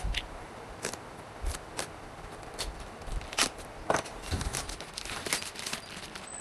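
A product box and its packing being opened and handled: irregular crinkling, rustling and sharp clicks, the loudest a little past three seconds and again at about four seconds in.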